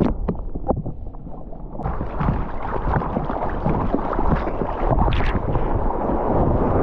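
Action-camera microphone going under the sea and back out: muffled underwater gurgling and bubbling, then about two seconds in the camera breaks the surface and a loud rush of water and wind over the surfboard takes over, with splashes.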